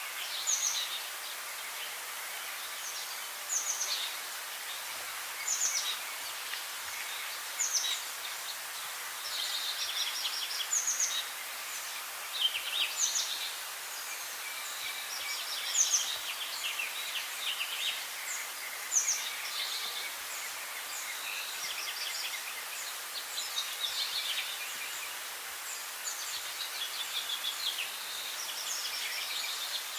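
Wild birds singing over a steady background hiss: a short, high call that slides downward repeats about every two seconds, with quick trills and chatter from other birds in between.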